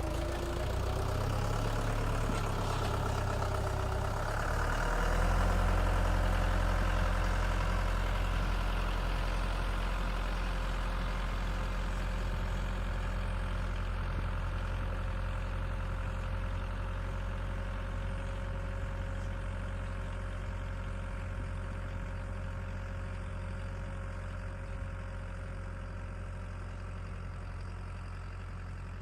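Lovol 504 tractor's diesel engine running steadily, its note rising and louder about four to five seconds in, then slowly fading.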